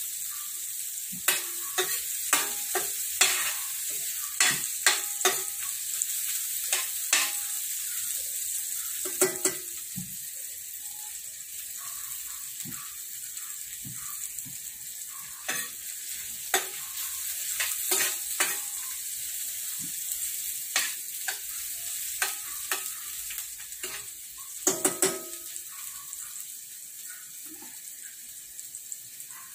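Sliced garlic and onion sizzling in hot oil in a stainless steel frying pan, with a metal spoon clinking and scraping against the pan as they are stirred. The clinks come in clusters, many in the first half and a quick flurry near the end. The sizzle grows gradually quieter.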